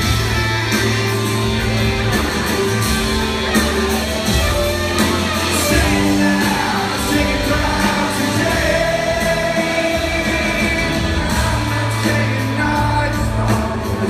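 Rock band playing live through a theatre PA, with guitars and bass under a sung melody.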